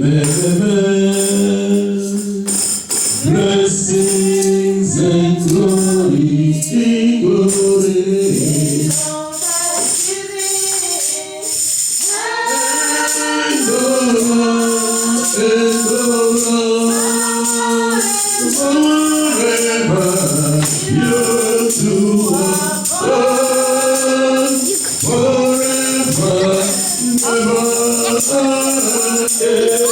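Church choir singing a gospel song with tambourine accompaniment. It starts abruptly, and the tambourine settles into a steady beat about eight seconds in.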